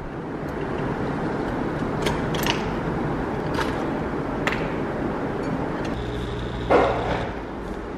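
Single-serve capsule coffee machine: clicks and knocks as the capsule is loaded and the machine is handled, then the pump buzzes for about a second and a half near the end while coffee runs into the mug, over a steady background hiss.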